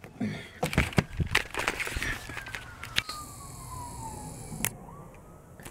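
Knocks and rustles of a phone being handled and swung around inside a car. Under them, a faint police siren falls slowly in pitch over a few seconds.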